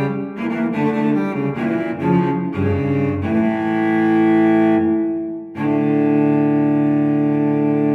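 Background music: a slow line of separate notes gives way to long held notes, with a brief drop about two-thirds of the way through before a held chord.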